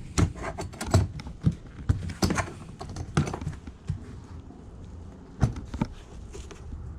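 Hands rummaging through a box of assorted items: irregular clicks, taps and knocks as things are moved and handled, busiest in the first few seconds and thinning out later.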